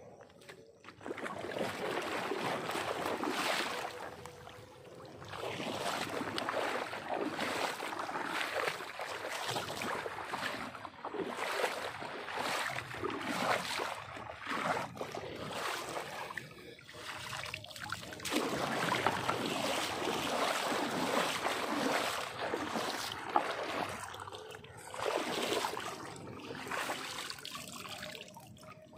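Shallow floodwater sloshing and splashing around legs wading through a flooded field, in uneven surges of a few seconds each.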